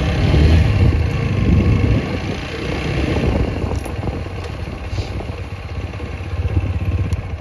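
TVS Apache RTR 160 4V's single-cylinder engine running as the motorcycle pulls away at low speed, louder for the first two seconds as it picks up speed, then settling to a steady, quieter run.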